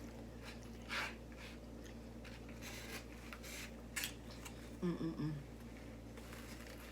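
Close-up chewing and biting of a soft, sloppy chili burger, a handful of wet, noisy mouthfuls. About five seconds in there is a short hummed "mm".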